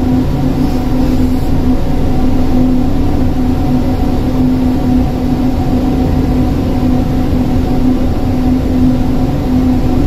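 Steady machinery hum aboard a ship: a constant low droning tone over a low rumble, without change.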